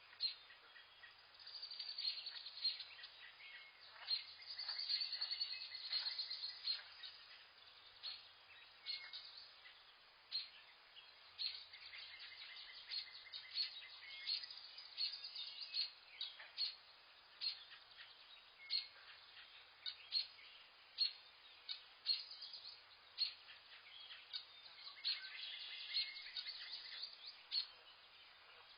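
Wild birds chirping and calling, several at once: a busy stream of short, sharp chirps with some longer trills, over a faint steady background hiss.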